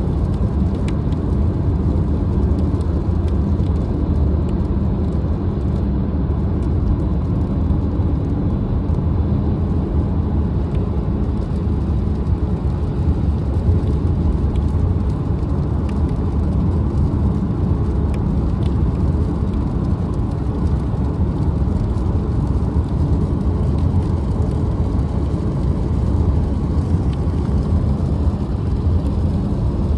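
Steady low rumble of road noise inside a car moving at highway speed: tyres and engine, unchanging throughout.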